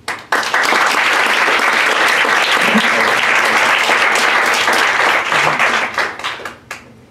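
Audience applauding: the clapping starts suddenly, holds steady for about six seconds, then thins to a few scattered claps near the end.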